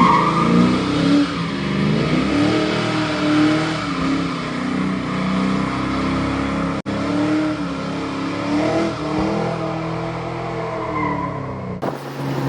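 1989 Ford Mustang Fox-body engine under hard acceleration, revs climbing and dropping several times as it pulls through the gears. There is a momentary break about seven seconds in.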